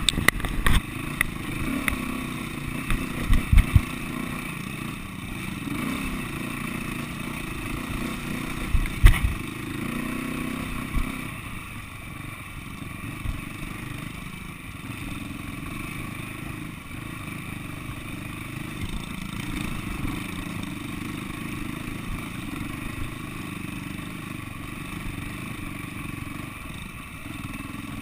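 Single-cylinder four-stroke SWM 300RS enduro motorcycle engine running at low speed, heard from the bike itself, with sharp knocks and clatter from riding over rough ground in the first ten seconds. It then runs steadier and a little quieter.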